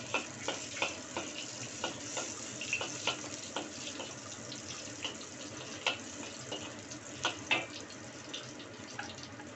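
Garlic cloves sizzling in hot oil in a wok: a steady hiss with irregular crackles and pops, and the occasional scrape of a metal spatula stirring them.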